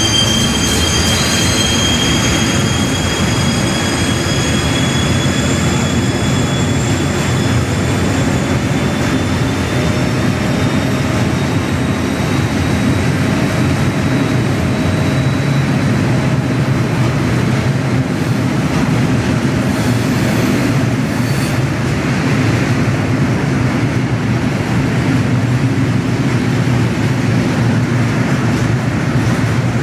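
Freight train of tank wagons, hauled by a BR 230 'Ludmilla' diesel locomotive, rolling steadily past with a continuous low rumble. High-pitched wheel squeal in the first few seconds fades away.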